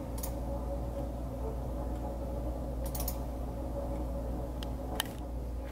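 A few short computer-mouse clicks, some in quick pairs, while a file dialog is browsed: one at the start, one about three seconds in and a sharper one about five seconds in. Under them runs a steady low electrical hum.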